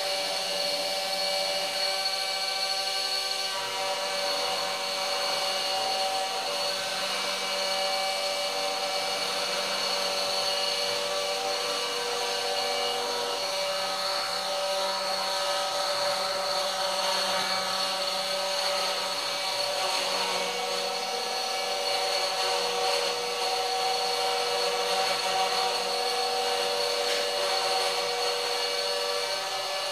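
Homemade CNC router milling a contour in fibreboard: the spindle runs steadily with a high whine while the end mill cuts. Under it, the stepper motors' hum changes pitch a few times as the tool changes direction along the path.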